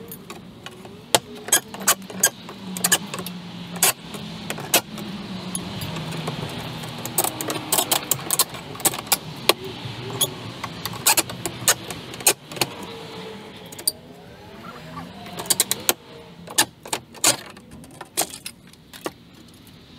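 Hand tools clinking and knocking in many sharp, irregular clicks during the tear-off of old wood soffit and fascia, with a low engine hum underneath.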